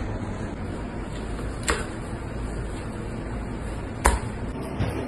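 Knife and slabs of raw tuna knocking on a plastic cutting board as a whole tuna loin is cut into blocks: two sharp knocks about two and a half seconds apart and a fainter one near the end, over a steady background noise.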